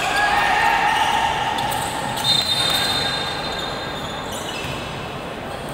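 Basketball in play on an indoor hardwood court: ball bounces and sneaker squeaks echoing in a large gym. A held pitched tone lasts for the first two and a half seconds or so, and a thin high squeak follows just after it.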